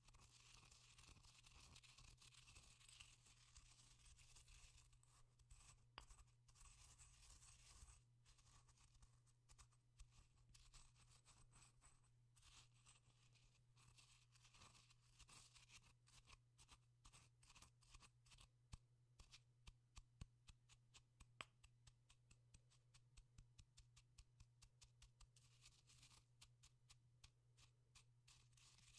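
Faint pestle working in a mortar: a scratchy grinding rasp for the first several seconds, then a run of small crunching clicks that comes quicker near the end. A steady low hum runs underneath.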